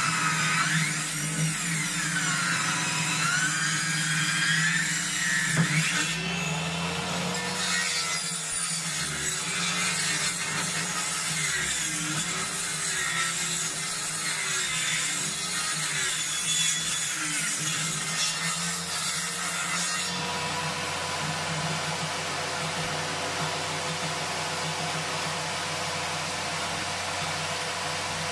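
Table saw's circular blade ripping a birch pole lengthwise, its whine wavering in pitch as the cut loads it, over the steady hum of the motor; it runs more evenly for the last several seconds.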